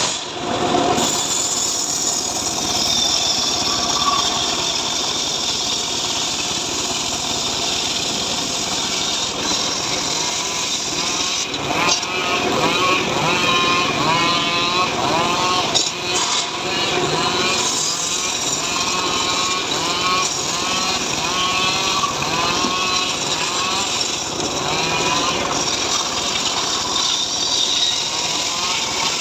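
Small petrol engine of a homemade srekel sawing rig running continuously as it cuts sengon logs, its pitch rising and falling again and again as the blade loads and frees up.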